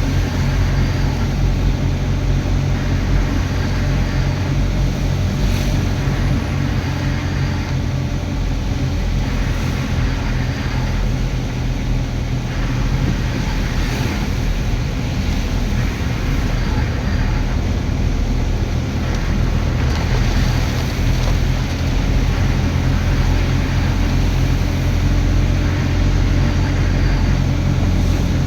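Motor vehicle running steadily, a continuous low engine drone with road noise and no letting up.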